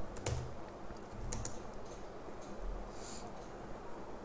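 A few separate keystrokes on a computer keyboard, single key presses spaced roughly a second apart, over a low background hum.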